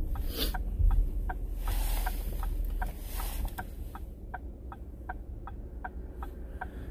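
Dog panting fast and steadily, about four to five short breaths a second, over the low road rumble inside a moving car.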